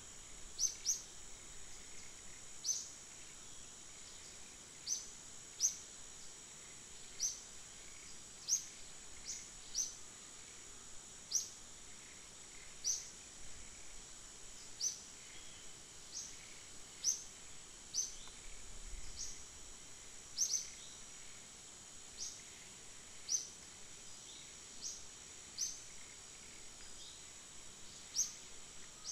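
Outdoor woodland ambience: a steady high-pitched insect drone, with a bird giving short, sharp chirps every second or two.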